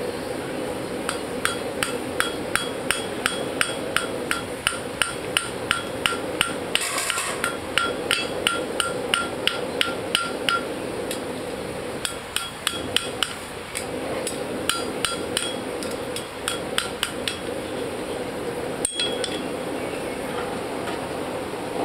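Hammer striking metal on an anvil, a farrier shaping a horseshoe, each blow ringing. The strikes come in steady runs of about two to three a second with short pauses between them, over a steady low hum.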